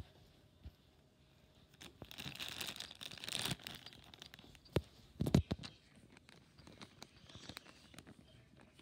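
Clear plastic bag crinkling and rustling as a plush toy is pulled out of it. A stretch of louder crackling comes about two to three and a half seconds in, and a couple of sharp knocks around five seconds.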